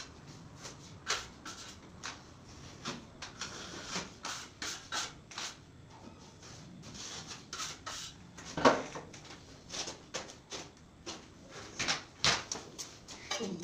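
Putty knife scraping and tapping as joint compound is worked and spread over the joints of fibre-cement ceiling board: a run of short, irregular scrapes and knocks, with one louder knock about nine seconds in.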